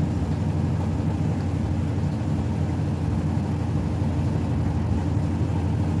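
Mademsa top-loading washing machine in its spin cycle: the drum spinning, giving a steady low hum.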